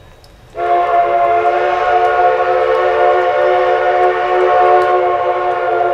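Steam whistle of Alaska Railroad 152, a 1920-built 4-6-0 narrow-gauge locomotive, sounding one long blast: several steady notes together, starting sharply about half a second in and held for about five seconds, easing off at the very end.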